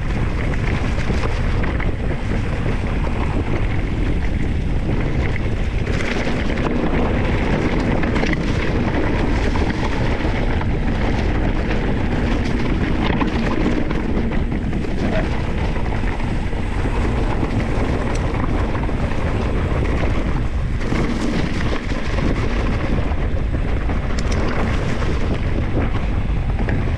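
Wind buffeting the microphone of a camera carried on a moving mountain bike, over the rumble of the ride on a dirt trail. The noise is steady and heavy in the low end, and it comes in abruptly.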